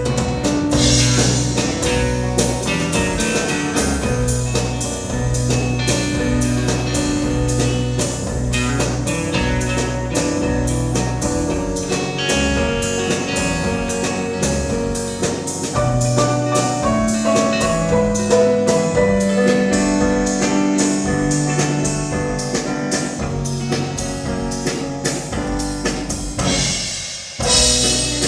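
A live band playing an instrumental stretch of a song, with drum kit and guitar over steady bass notes. The music drops out briefly about a second before the end, then starts again.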